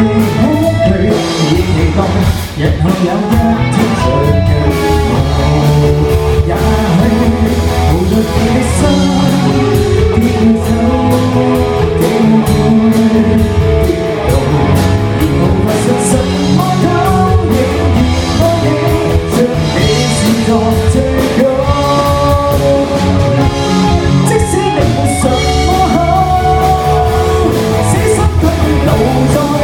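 Live rock band playing a song: a singer over guitars and a drum kit.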